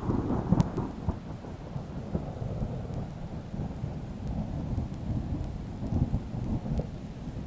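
Thunder: a sudden loud clap with a sharp crack about half a second in, rolling on as a long, low, surging rumble.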